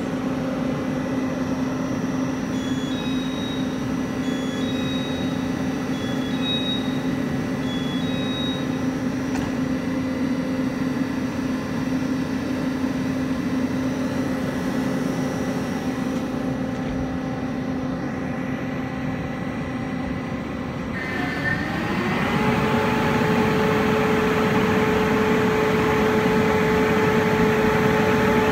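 E1000-series push-pull express train giving off a steady electrical hum, with a few faint high beeps early on. About 21 seconds in, another machine hum comes on, glides up in pitch, and settles into a steady higher drone as the sound gets louder.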